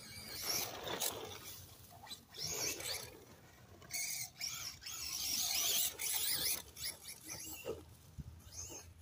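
Traxxas Slash 2WD electric RC truck, on 32-pitch 16/56 gearing, driven on sandy dirt in several bursts of throttle: a high-pitched motor and gear whine rising and falling in pitch, with the hiss of the tires throwing sand. It is loudest about halfway through.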